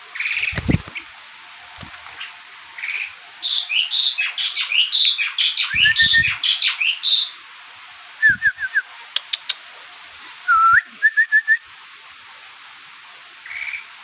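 Sooty-headed bulbul (kutilang) calling in short, whistled chirps, with a busy run of quick notes in the middle and a few short call series later. A dull thump about half a second in.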